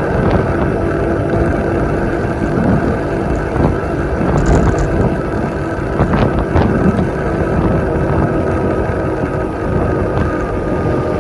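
A vehicle's engine drones steadily under wind rushing over the microphone, at a cruising pace with no change in speed. A brief high hiss comes about four and a half seconds in, and a few light knocks come a couple of seconds later.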